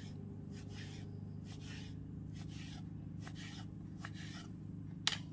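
Sharp kitchen knife slicing through thick scored squid onto a wooden cutting board: a string of soft cuts and taps, roughly two a second, over a low steady hum, with a sharper knock near the end.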